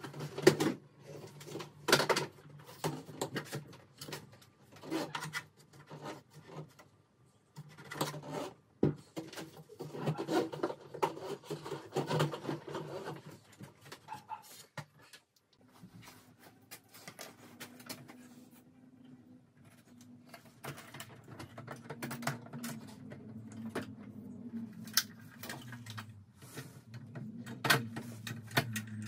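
Irregular clicks, knocks and rattles of plastic and metal parts being handled and fitted on a DeWalt DWE7485 compact table saw during assembly. A low steady hum comes in about halfway through.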